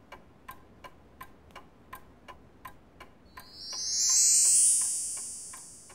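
A clock ticking faintly and steadily, about four ticks a second. From about three seconds in, a cartoon whoosh of a flying craft sweeps up in pitch, swells to loud, and fades away.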